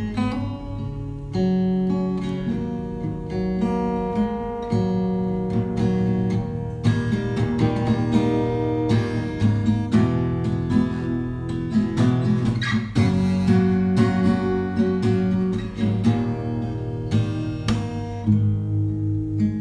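Background music on acoustic guitar: plucked notes and strummed chords.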